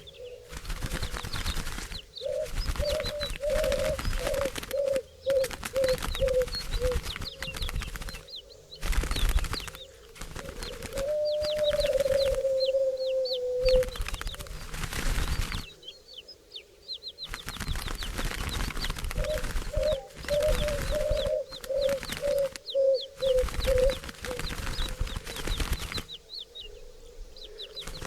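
Doves cooing in low, purring phrases, one run of quick pulses early on, a long held coo in the middle and another pulsing run later, with stretches of flapping wingbeats and small birds' high chirps throughout.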